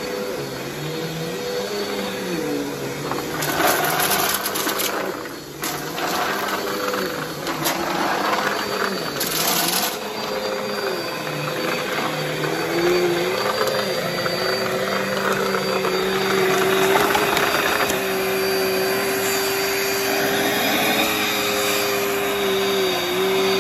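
Upright bagless vacuum cleaner running on carpet, its motor hum wavering slightly in pitch as it is pushed back and forth. Brief crackling rattles come now and then as debris is sucked up.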